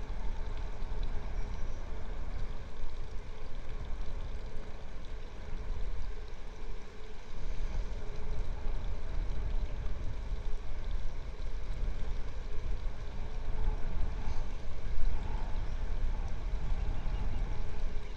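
Uneven low rumble of wind on an outdoor microphone, with a faint steady hum underneath.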